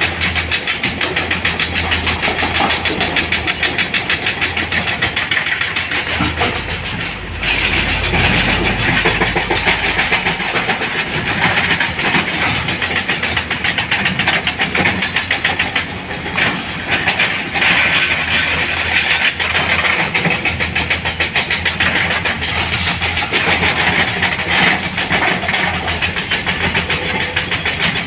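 Heavy diesel engine of earthmoving machinery running steadily, a fast even chatter with a low hum, easing briefly twice.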